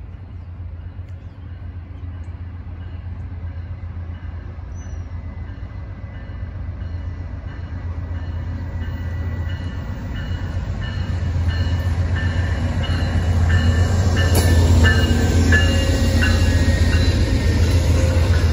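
Amtrak passenger train approaching and passing, its diesel locomotive's rumble growing steadily louder, with a faint repeated ringing tone and a sharp clank about fourteen seconds in.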